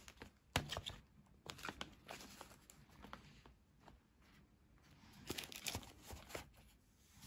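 Faint handling of a hard plastic phone case and its packaging: scattered light clicks and rustles, busiest about five to six and a half seconds in.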